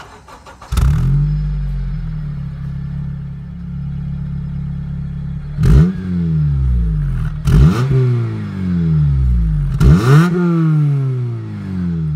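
A 2007 Honda Civic Si's K20 2.0-litre four-cylinder with its muffler deleted, heard at the open exhaust tip. It starts up about a second in and settles to a steady idle, then is revved three times in quick blips that rise sharply and sink back to idle.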